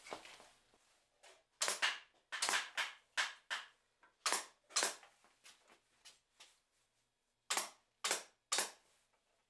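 Senco pneumatic gimp stapler firing staples through jute webbing: about a dozen sharp shots, in quick clusters from about a second and a half in, then three more near the end.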